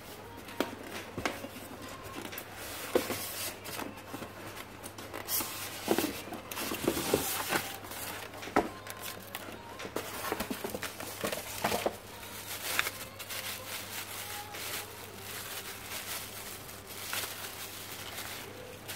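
Packaging being handled: clear plastic wrapping crinkling and a cardboard box shifted about, with scattered light knocks and rustles throughout. A steady low hum runs underneath.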